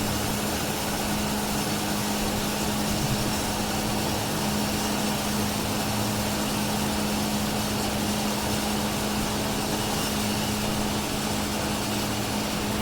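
Harbor Freight bandsaw dry-cutting a thick-walled 5-inch titanium elbow with a 14-tooth-per-inch Lenox blade, nearing the end of the cut. The motor's steady hum runs under an even hiss from the blade in the metal.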